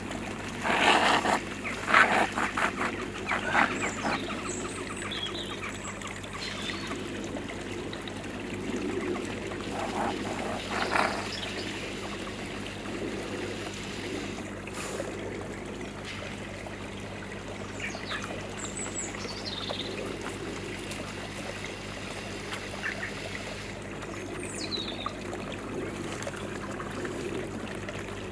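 Steady trickle of pond water, with a low steady hum under it and a few short high bird chirps. A few brief louder noises come in the first few seconds and again about ten seconds in.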